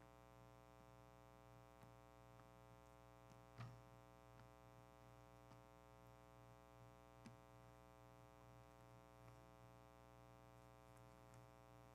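Near silence over a steady electrical hum, with a few faint soft rustles and taps as the pages of a Bible are turned by hand; the clearest is about three and a half seconds in.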